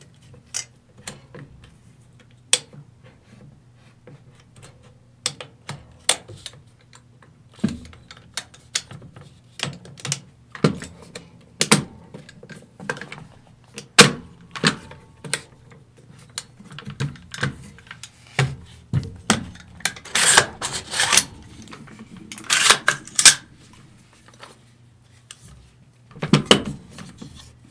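Metal parts of a Del-Ton AR-15 rifle being handled and fitted together during reassembly: irregular sharp clicks, clacks and short rattles, with denser bursts of rattling near the end, over a faint steady low hum.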